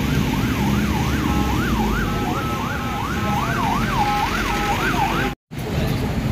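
Emergency vehicle siren sounding a rapid rising-and-falling yelp over a low rumble of traffic; it cuts off abruptly about five seconds in.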